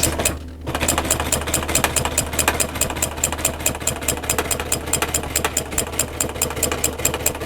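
Industrial sewing machine stitching upholstery at a steady speed, its needle clattering about eight strokes a second over the hum of its motor. It starts just under a second in and stops abruptly near the end.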